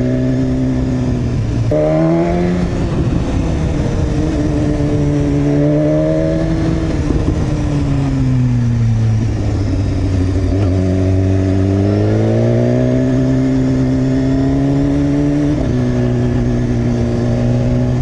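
Motorcycle engine under way, its revs rising and falling, with sudden pitch steps about two seconds in, near eleven seconds and near the end. A steady rush of wind and road noise runs underneath.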